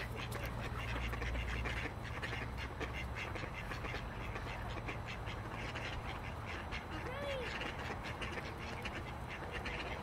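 Ducks calling with a few quacks over a steady wash of background noise, the clearest a single rising-and-falling call about seven seconds in. A low hum stops about two to three seconds in.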